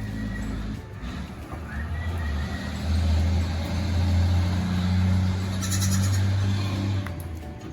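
Goat bleating, one pulsing bleat a little before six seconds in, over a steady low hum.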